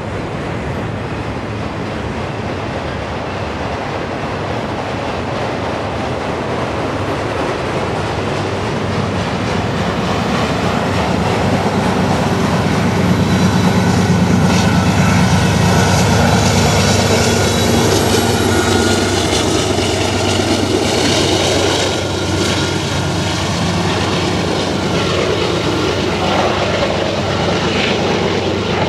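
Freight cars rolling past with steady wheel-on-rail rumble. Then the Union Pacific rear pusher diesel locomotive passes: its low engine drone builds to its loudest about halfway through and fades as it moves away.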